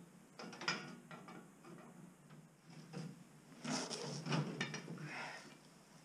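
Ratchet spanner clicking and metal tools clinking while bolts are worked at a pickup's front bumper. The clicks come in short clusters, a brief one near the start and a longer, louder run about four seconds in.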